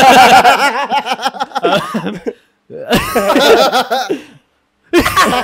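Several people laughing loudly together, in three bursts with short pauses between them.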